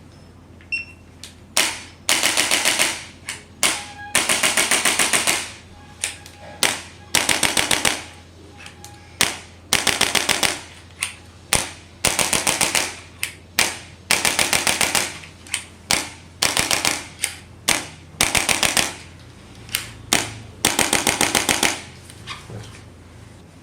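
Hand-held chiropractic adjusting instrument firing on the lower back in repeated bursts of rapid clicks, about seven a second, each burst lasting up to about a second and a half, with short single clicks between the bursts.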